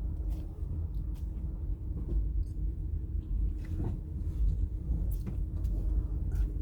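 Low, steady rumble of a car's engine and tyres heard inside the cabin while driving slowly, with scattered light clicks and knocks.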